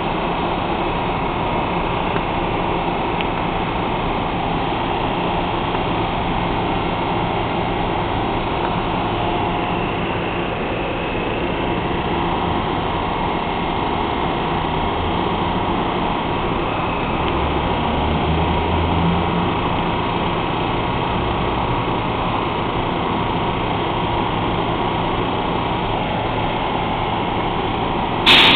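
Steady hum and rush of a Metro-North Shoreliner commuter train's coaches alongside the platform, with a low rumble that swells for several seconds in the middle. A sudden loud bump comes right at the end.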